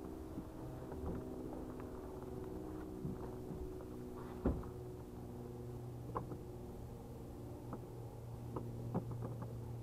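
Steady engine-like hum with scattered knocks and clunks, the sharpest about four and a half seconds in and a few more near the end, typical of a kayak and its gear being handled.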